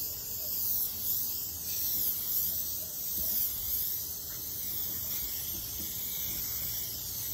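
Aerosol can of Rust-Oleum engine paint spraying continuously: a steady high hiss that swells and fades every second or two as the can is swept back and forth across the grill hood.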